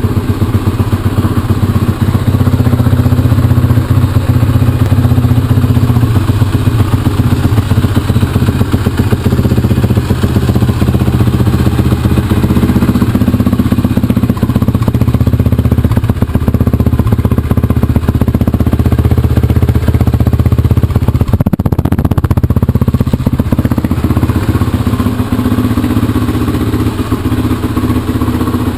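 Suzuki LTR450 quad's 450 cc single-cylinder four-stroke engine running loudly through a Doma Racing aftermarket exhaust.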